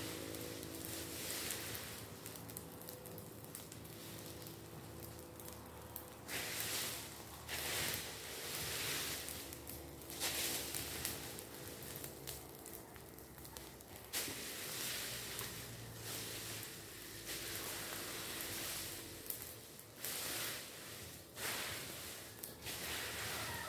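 Small open fire of leaf litter and branches burning, crackling and rustling in short bursts of hiss every few seconds.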